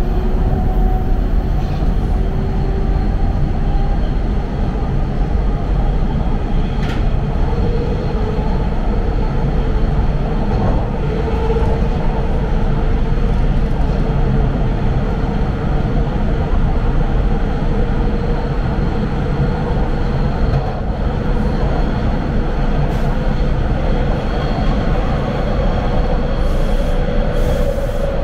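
TTC Line 2 subway train running between stations, heard from inside the car: a steady loud rumble of wheels on track, with a faint whine that drifts slightly in pitch.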